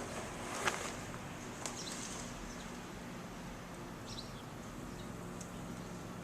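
Small birds chirping faintly, a few short high chirps, over a low steady hum, with one brief noisy burst just under a second in.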